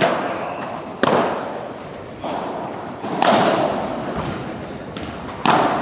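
Padel ball struck back and forth with solid padel rackets in a rally: about five sharp pops roughly a second apart, each ringing out in the hall, with a few softer knocks of the ball on the court and glass walls between.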